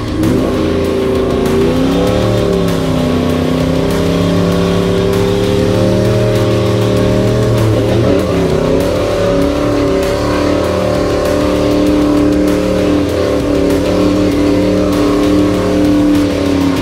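Toyota LandCruiser 79 Series' turbo-diesel V8 revving hard under full throttle as it powers through soft, boggy sand. The revs climb, break briefly about eight seconds in at the shift into second gear, then hold high.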